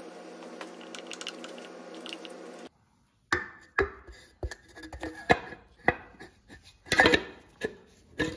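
A steady hum for the first few seconds. After a brief break, a series of irregular sharp metal knocks and clunks follows as a steel brake drum is handled and seated onto an ATV's rear axle hub.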